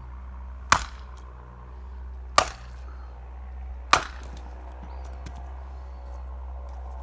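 Axe striking firewood three times, about a second and a half apart: sharp chopping cracks as the logs are split.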